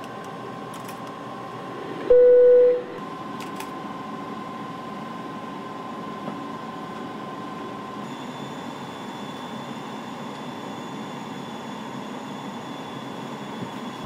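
Steady hum of an airliner flight deck, with a faint steady tone running through it. About two seconds in, one loud electronic beep lasts just under a second. From about eight seconds in, a faint high-pitched whine joins.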